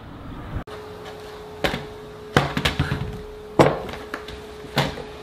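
Four sharp knocks spaced roughly a second apart, a laptop being handled and knocked against a wooden tabletop, over a faint steady hum.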